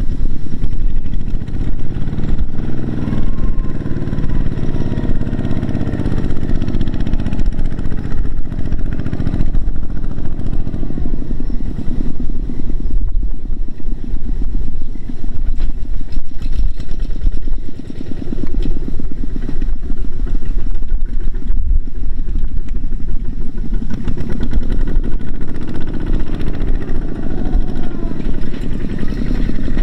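Two-wheel walking tractor's single-cylinder diesel engine chugging under load as it pulls a trailer laden with rice sacks, its pitch rising and falling as the throttle changes, most noticeably in the first few seconds and again near the end.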